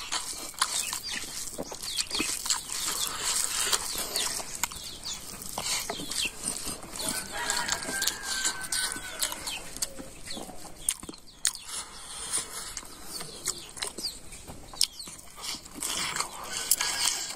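Chickens clucking and calling, with a drawn-out call about halfway through and again near the end, over short clicks and smacks of eating by hand.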